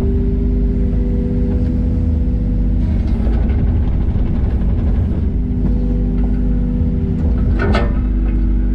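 Takeuchi TB125 mini excavator's diesel engine running steadily, with a higher whine that comes in twice as the machine works. There is one sharp knock near the end.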